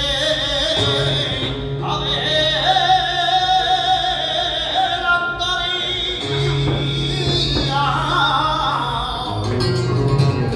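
Male flamenco singer (cantaor) singing malagueñas in long, wavering held phrases, accompanied by flamenco guitar.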